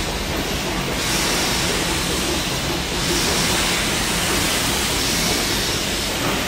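Steady machinery din and steam hiss in the engine room of the steamship Earnslaw, with her boilers in steam; the hiss swells and eases every couple of seconds.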